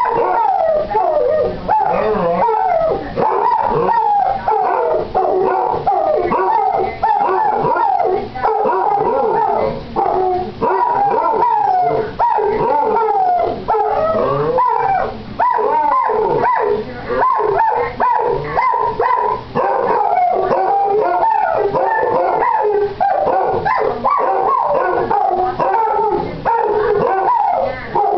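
Two basset hounds howling together, their long howls overlapping and gliding up and down in pitch almost without a break. The younger one, almost eight months old, still has a high howl like a little pup's.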